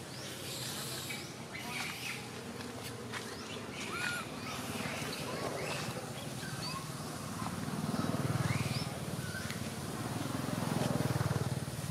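Outdoor ambience with scattered short, high-pitched animal chirps and squeaks. A low rumble swells twice in the second half.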